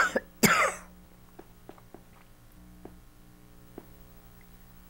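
An elderly woman coughs into her fist, a short loud cough in two bursts about half a second apart, which she puts down to getting emotional. Afterwards faint small ticks as she sips water from a glass.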